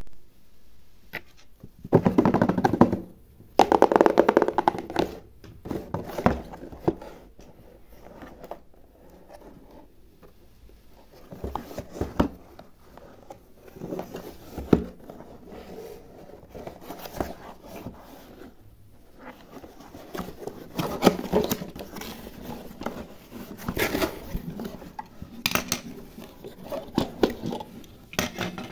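Hands handling objects: scattered taps, scrapes and rustling, with two louder rustling bursts in the first five seconds.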